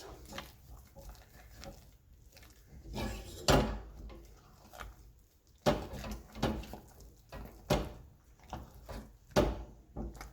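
Kitchen utensil knocking and scraping in a saucepan of mashed potato and butter, with about five separate knocks spread a second or two apart.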